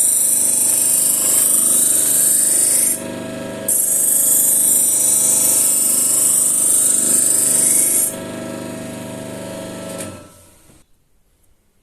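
Grinder spinning a paper honing wheel charged with 10-micron diamonds, a steel blade pressed against it in passes: a loud high hiss over the steady motor hum, breaking off briefly about 3 seconds in and then running again until about 8 seconds in. Near the end the motor is switched off and dies away.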